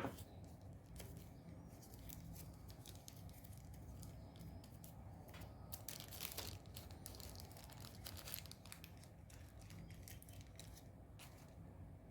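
Faint handling noise: scattered small clicks and crinkling rustles, busiest around six seconds in, over a low steady hum.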